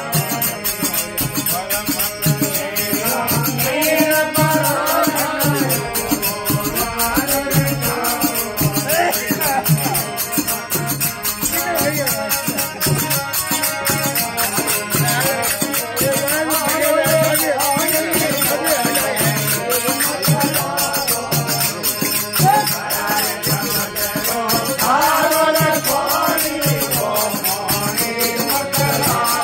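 Rajasthani desi bhajan: men singing a devotional song to harmonium, with brass manjira hand cymbals jingling in a steady rhythm and a low beat a little more than once a second.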